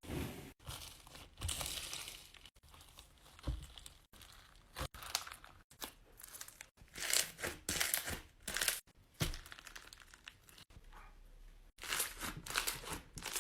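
Slime being squeezed and pressed by hand, in short, irregular bursts of noise with a few sharp clicks.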